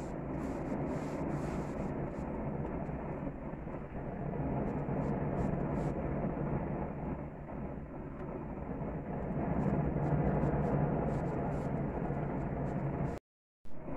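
Tri-tip searing on a gas grill: a steady rushing of the burner flames mixed with sizzling, with faint crackles and pops, swelling a little before easing. The sound cuts out completely for a moment near the end.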